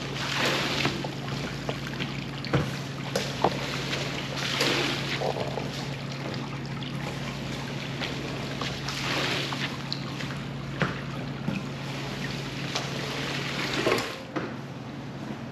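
Rug washing: water hissing and swishing over a wet rug in swells every four to five seconds, with scattered small clicks, over a steady motor hum that cuts off about a second before the end.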